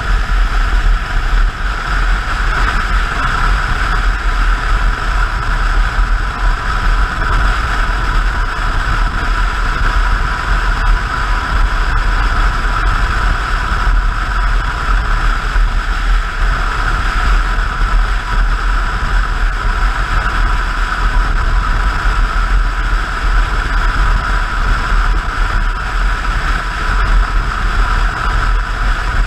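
Motorcycle cruising steadily at highway speed: a constant rush of wind over the camera microphone, with engine and road noise underneath and no change in speed.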